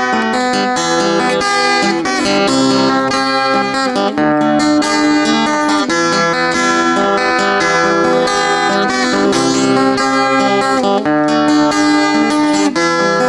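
Steel-string acoustic guitar playing an instrumental passage, strummed chords in a steady rhythm.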